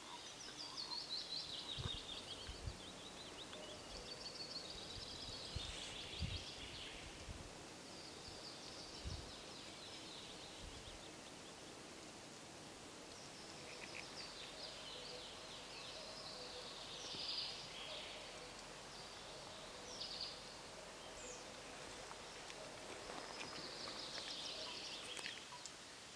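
Songbirds singing in spring woodland: short trilled and falling phrases repeated every few seconds over a faint steady outdoor hiss. A few soft low thumps sound in the first ten seconds or so.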